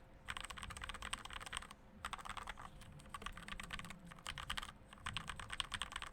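Fast typing on a RAKK Pluma mechanical keyboard fitted with lubed Gateron Pro Yellow linear switches. The keystrokes come in quick runs of clicks with short pauses between them.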